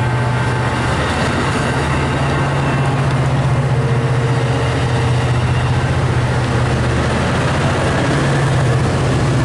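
Amtrak F59PHI diesel-electric locomotive's 12-cylinder EMD 710 diesel engine running with a steady low drone.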